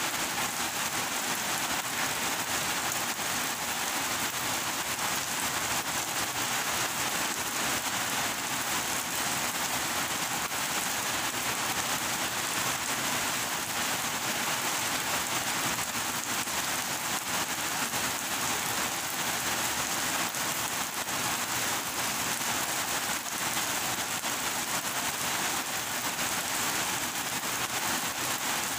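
Heavy rain falling steadily, an even dense hiss with no let-up.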